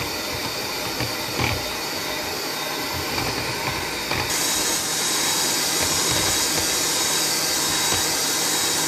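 Electric hand mixer running steadily, its two beaters whisking a thick cream of boiled condensed milk, butter and sour cream in a plastic bowl. The whir gets louder and brighter about four seconds in.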